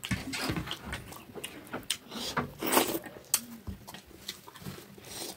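Close-up eating sounds: chewing and lip-smacking, a run of irregular wet clicks, as rice is eaten by hand.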